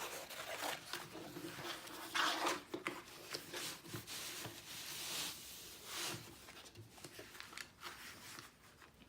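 Rustling and crinkling as the packaging and canvas of a diamond painting kit are handled, in uneven bursts with a few light taps, growing quieter near the end.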